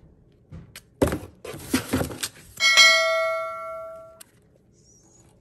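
Subscribe-button sound effect: a few clicks and rustles, then a bright bell-like ding. The ding is the loudest sound; it rings for about a second and a half, fading, then cuts off abruptly.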